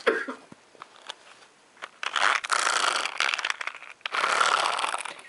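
Two rustling scrapes, each about a second long, starting about two and four seconds in: something brushing against the camera where it sits on the carpet.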